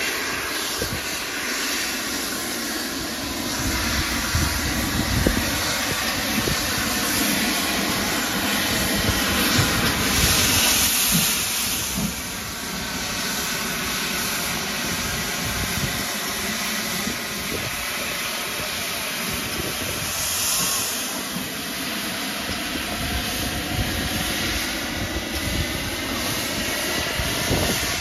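GWR Castle-class steam locomotive 4079 'Pendennis Castle' hissing steadily as steam escapes at its front end by the cylinders, with louder surges of hiss about ten seconds in and again about twenty seconds in.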